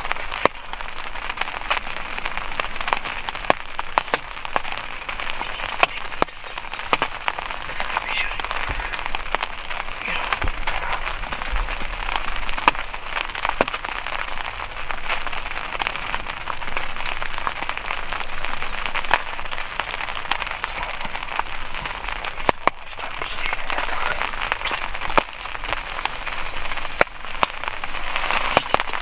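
Steady rain, with many separate drops ticking sharply on a surface close by.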